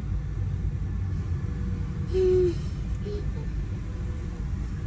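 Steady low road-and-engine rumble of a car driving, heard from inside, with a short flat tone about two seconds in.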